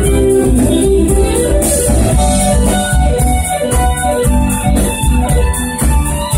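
Live band playing an instrumental passage of dance music, with a steady beat in the bass and drums under keyboard lines.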